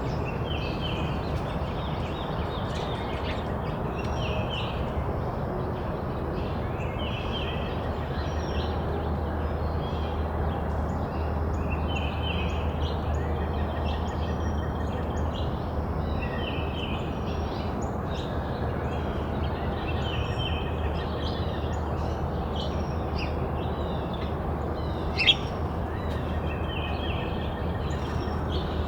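Several small songbirds chirping and calling again and again over a steady low background rumble. One sharp click stands out near the end.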